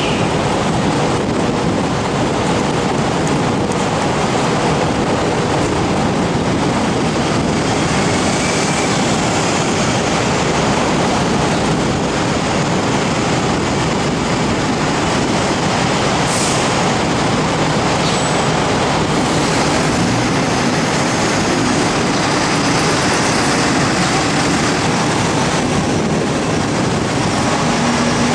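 Diesel buses running and pulling away: a steady, loud mix of engine and traffic noise with no pauses.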